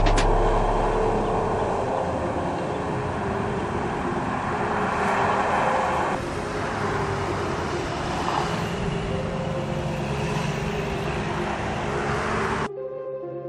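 Steady traffic noise of cars and trucks moving and running. It cuts off abruptly near the end.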